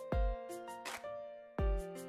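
Background music with a steady beat: deep drum thumps and short bright hits under sustained instrumental notes.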